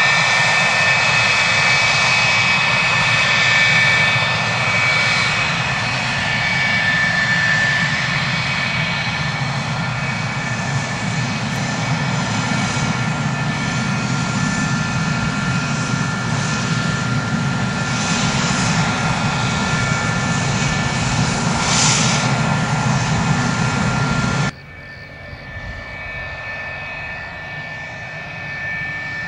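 F-104 Starfighter's J79 turbojet running at taxi power: a steady rushing jet noise with a high whine. About 24 seconds in it drops suddenly and goes on quieter.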